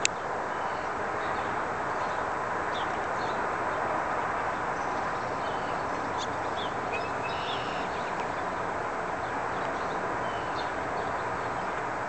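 Steady background hum, like distant city traffic, with faint short bird chirps scattered through it; a sharp click right at the start.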